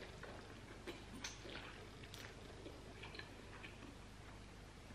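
Faint slurping and chewing of instant noodles, with soft, irregular mouth clicks a few times a second.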